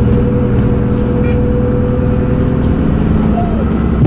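Dennis Trident double-decker bus engine running steadily under way, a constant drone of engine tones; the higher tone eases off about three seconds in.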